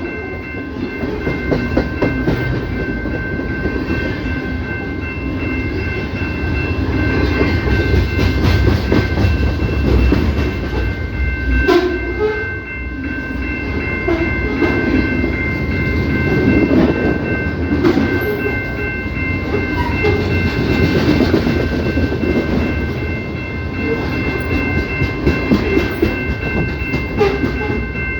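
CPKC freight train rolling by, a continuous rumble with wheels clattering over the rail joints. A steady high whine is held throughout.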